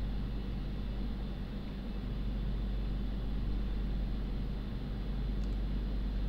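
Steady low rumble of background noise, with a faint tick or two about five and a half seconds in.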